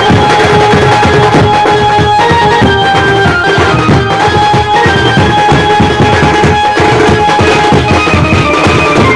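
Benjo band playing loud and fast: an amplified melody line of held notes, moving in steps, over dense, rapid drumming.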